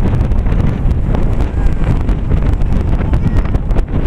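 Wind buffeting the microphone: a loud, continuous low rumble with frequent crackling pops.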